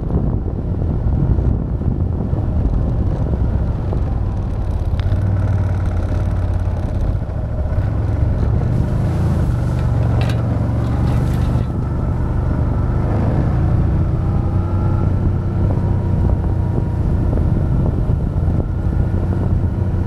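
Motor vehicle engine running steadily while driving, with a couple of short knocks about five and ten seconds in.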